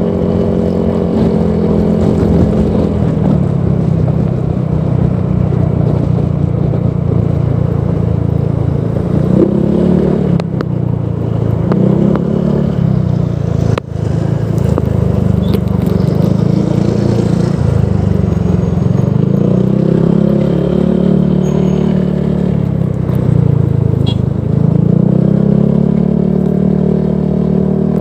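Honda PCX 160 single-cylinder scooter engine running through a Proliner Neo Silent aftermarket exhaust, its note dropping and rising again several times as the throttle is eased and opened.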